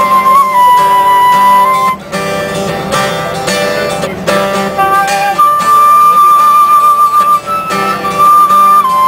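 A transverse flute playing a slow melody of long held notes over an acoustic guitar strummed in chords.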